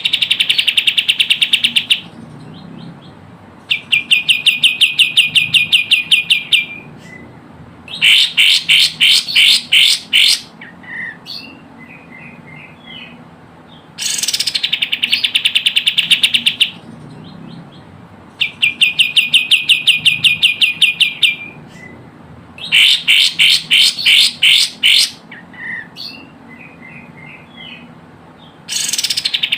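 Recorded kapas tembak bird calls played as a lure: phrases of rapid, evenly repeated chirps, each phrase lasting two to three seconds, recurring about every five seconds, with a few softer short notes in between.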